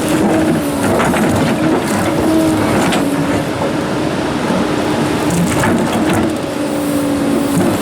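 Komatsu PC290-11 excavator's diesel engine running steadily, with big rocks knocking and grinding against steel in scattered clunks.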